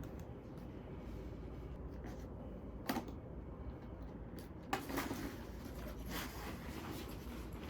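Quiet room tone with a low hum, broken by a few short clicks and knocks of things being handled, the sharpest about three seconds in and another near five seconds in.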